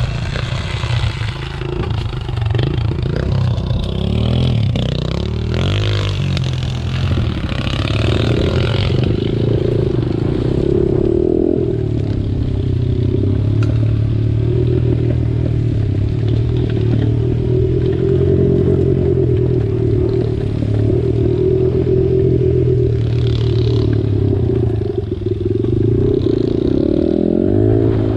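Small four-stroke single-cylinder pit bike engine running under way on a trail, its revs rising and dipping a little, with the bike clattering over rough ground.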